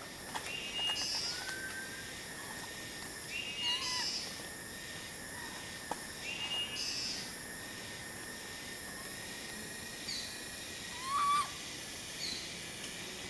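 Short high-pitched animal calls, repeating every few seconds, with a louder whistled call near the end, over a steady high tone and outdoor background hiss.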